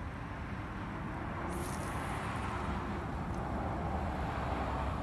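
Steady outdoor rumble of wind and road traffic, swelling a little after the middle, with a brief high swish of a spinning rod being cast about a second and a half in.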